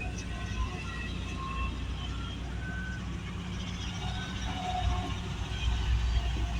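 Heavy diesel machinery, an excavator and a crusher plant, running with a steady low engine drone. Short high-pitched squeaks or tones are scattered over it.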